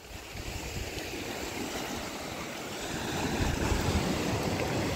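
Surf washing on the shore mixed with wind buffeting the microphone, a steady rushing noise that grows louder about three seconds in.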